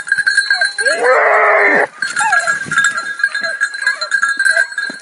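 Hunting dogs baying and yelping as they set off after a wild boar, with one long loud bay about a second in. The bells on their collars ring steadily underneath.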